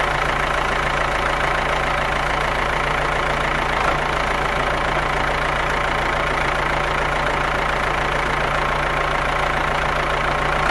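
Small engine of a DIY mini tractor idling steadily, with an even, slightly knocking running note.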